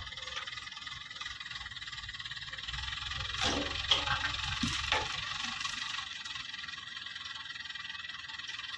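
ACE pick-and-carry crane's diesel engine running as it lowers a bundle of cut logs into a truck bed, with a handful of sharp knocks and clatters between about three and five seconds in as the logs land. A steady high chirring runs underneath.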